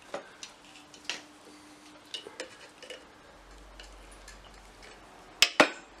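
Light, scattered clicks and clinks of metal parts and hand tools being handled during an engine repair, with two sharp knocks close together near the end.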